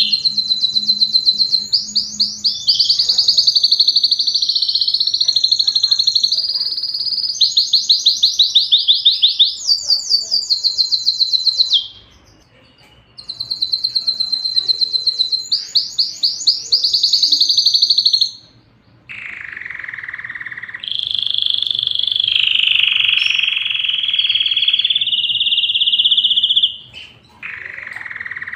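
Domestic canary singing a long song of fast, high trills and rolls, broken by two short pauses about twelve and eighteen seconds in. From about nineteen seconds the song turns to lower, buzzing rolls.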